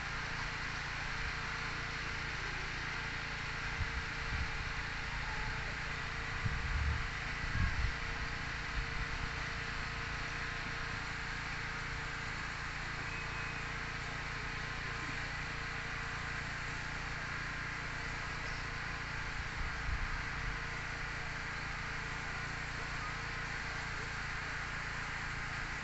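Steady outdoor background hiss with a faint buzzing hum and no voices, with a few soft low bumps a few seconds in and again later on.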